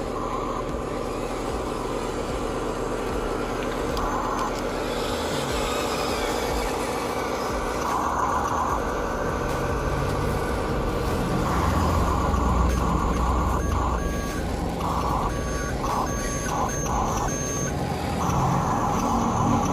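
Electronic reversing beeper of a radio-controlled truck sounding on and off over a steady motor hum. The beeps come in short spells at first, then in quicker runs in the second half.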